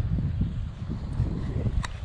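Wind buffeting the microphone, an uneven low rumble that comes and goes, with one short click near the end.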